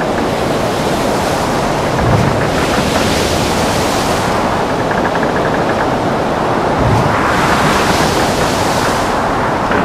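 Storm at sea around a ship: a steady roar of wind and churning water, with a heavy wave hitting in a low thump about two seconds in and again about seven seconds in, each followed by a hissing rush of spray lasting a couple of seconds.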